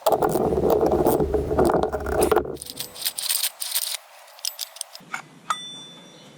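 Metal parts of a pull-start recoil starter rattling and scraping as they are handled, loudest and busiest in the first two and a half seconds. After that come scattered clicks and one sharp metallic clink with a brief ringing about five and a half seconds in.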